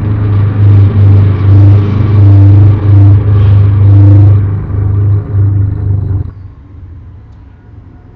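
A loud, low, pulsing rumble with a hum in it, coming in short surges about every half second and cutting off abruptly about six seconds in.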